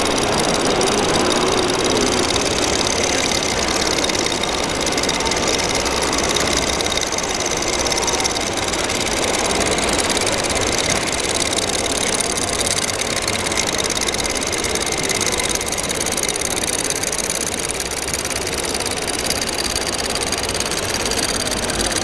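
Steady engine noise from 1/14-scale RC trucks and construction machines running, continuous and even throughout.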